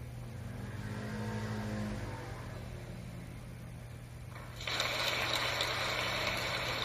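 Audience applauding, heard off a television's speaker. It starts suddenly about four and a half seconds in and keeps going, over a steady low hum.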